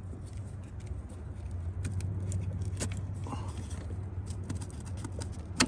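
Light clicks and scrapes of hands and tools working at the radiator's clips and lines, with one sharper click near the end, over a steady low hum.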